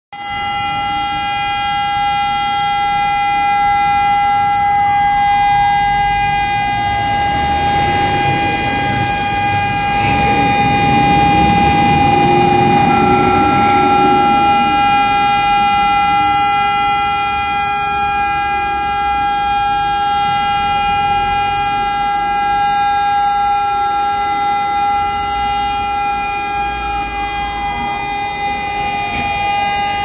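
Civil-defence air-raid sirens across the city sounding a long, steady wail at several pitches at once, the yearly 18 September memorial alarm. One of the pitches glides down about four seconds in and again near the end, and back up around the middle. Street traffic runs underneath, loudest around the middle.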